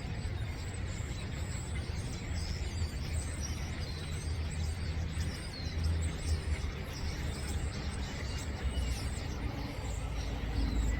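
Starlings chattering, a continual mix of short squeaky whistles and chirps from several birds, over a steady low rumble of wind on the microphone.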